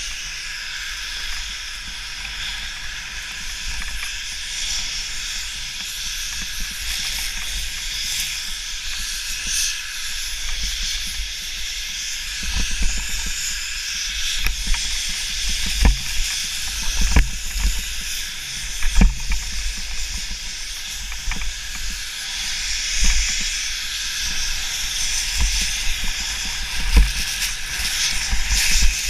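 Skis hissing steadily over snow at speed, with wind rushing over a helmet-mounted camera. From about halfway through, irregular low thumps and a few sharp knocks break in, louder than the hiss.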